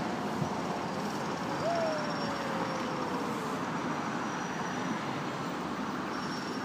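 Steady city traffic noise, an even hum of passing vehicles, with one drawn-out falling tone about two seconds in.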